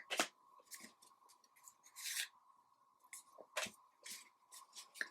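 Trading cards and their packaging being handled: quiet, intermittent rustles, crinkles and clicks.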